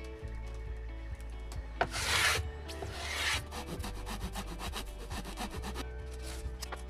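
Two short rasping rubbing strokes on wood, about two and three seconds in, over background music.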